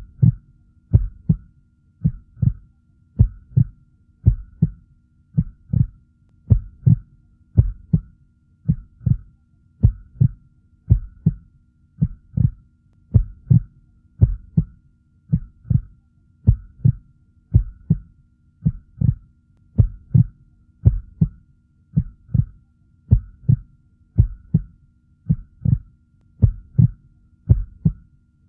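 Heartbeat sound effect: a steady lub-dub of paired low beats, a little under one pair a second, over a faint steady hum.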